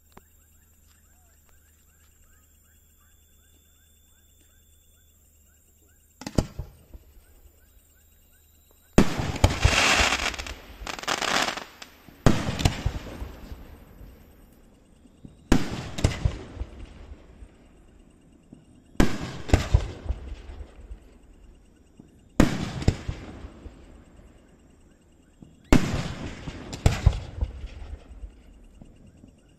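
Aerial firework shells going off in a series: after a quiet start and a single bang about six seconds in, a sharp bang comes about every three seconds from about nine seconds in, each one fading out over a second or two, some with a second bang close behind.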